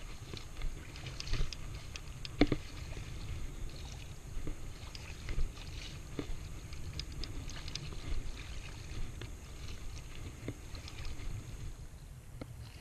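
Small waves lapping and splashing around a wading angler, with a steady low rumble of wind on the microphone. Scattered light ticks and knocks come from handling a spinning rod and reel, the sharpest about two and a half seconds in.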